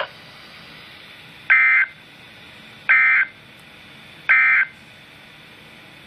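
Three short buzzing data bursts of a NOAA Weather Radio SAME end-of-message code, played through a weather radio's speaker. They come about a second and a half apart over a faint hiss, and they mark the end of the special marine warning.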